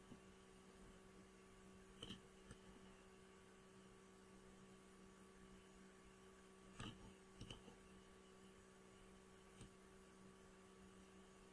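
Near silence: a faint, steady low hum, with a few faint clicks about two seconds in and again around seven seconds in.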